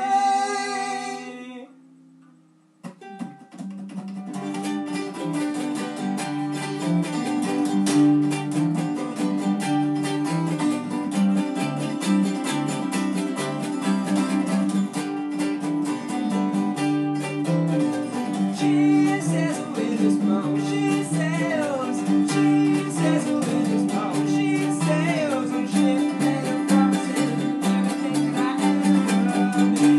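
A held sung note ends about a second and a half in. After a short pause a strummed acoustic string instrument starts up and keeps a steady rhythm, with faint singing in places.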